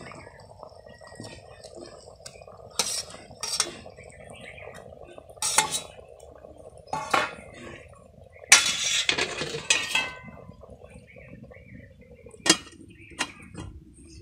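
A steel spatula clinking and scraping against a metal cooking pot, several separate strokes with a longer run of scraping just past the middle, over the steady sound of an egg curry simmering. Near the end a single sharp metal clank as the lid is set on the pot.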